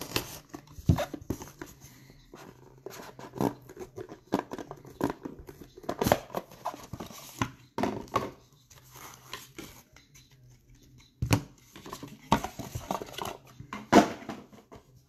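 Hands opening a cardboard trading-card box and handling cards in hard plastic toploaders: the lid scrapes and slides, with rustling and repeated sharp taps and clicks as the toploaders are lifted out and set down on the table.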